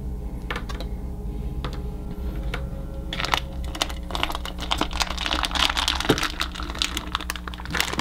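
A plastic blind-bag wrapper crinkling and rustling with many small clicks from about three seconds in, as it is pulled out of a jar of water beads. Soft background music plays underneath.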